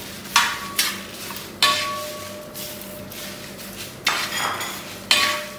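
Slotted metal spatula scraping and knocking against a wide metal uruli while stirring dry red chillies and coriander seeds. About five sharp knocks, each with a brief metallic ring of the pan, over the scrape and rattle of the spices.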